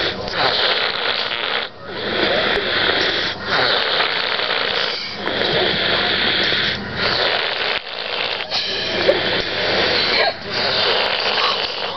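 Heavy snoring, one breath about every one and a half to two seconds with only short pauses between, harsh and noisy rather than tonal. It is really bad, made worse by illness.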